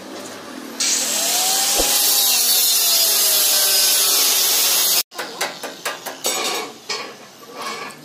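Work on a mini corn thresher's motor mount: a loud steady scraping hiss for about four seconds that cuts off abruptly, then a string of light clicks and knocks of metal parts being handled as the electric motor is positioned and bolted to its base plate.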